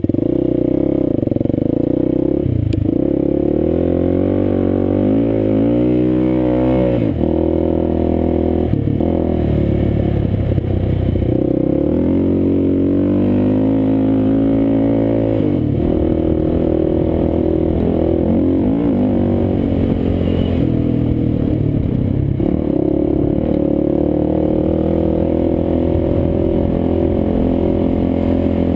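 Quad ATV engine running hard under way, its pitch repeatedly rising and falling with throttle and gear changes, with a few deeper dips and climbs in engine speed.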